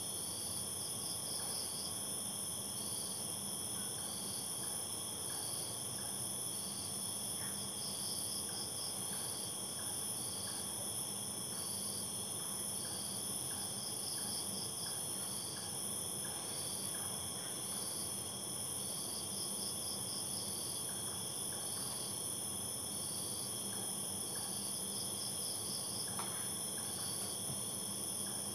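Night insect chorus of crickets: a steady high-pitched drone, with a chirp repeating about every second and a half that breaks into a short trill every six seconds or so.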